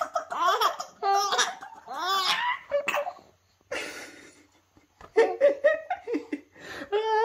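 A baby laughing in short bursts of giggles, an early laugh, with high sing-song voice sounds from an adult playing with her between the laughs.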